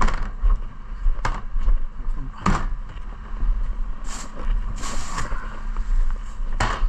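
Plastic wheelie bin being wheeled over tarmac and handled at the back of a bin lorry, with several sharp knocks and rattles as the bin and a bin bag are moved. Under it, a steady low rumble and hum from the lorry running.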